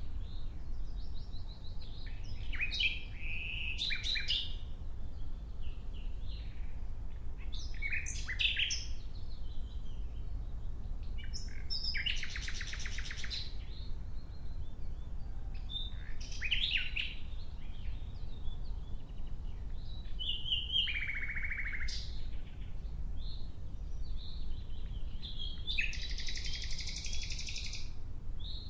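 Nightingale singing: short, varied phrases every few seconds with pauses between, some of them fast runs of repeated notes, over a steady low background rumble.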